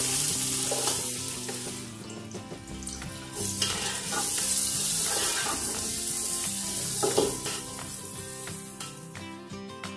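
Chopped onions sizzling in hot oil in an aluminium pot as they go in and are stirred with a wooden spatula. The sizzle is loudest in the first two seconds and again from about three and a half to seven seconds in, easing off toward the end.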